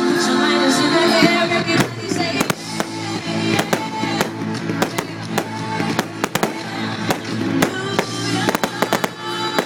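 Fireworks going off, with many irregular sharp bangs and crackles, over music playing along with the show.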